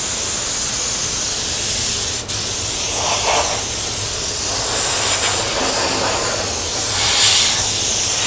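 Compressed-air paint spray gun hissing steadily as it lays a tinted colour coat, with a brief break about two seconds in.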